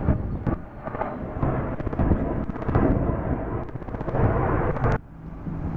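Jet engine noise from a T-tailed jetliner climbing out after takeoff: a rumbling roar mixed with wind buffeting on the microphone. It cuts off abruptly about five seconds in, leaving a quieter windy rumble.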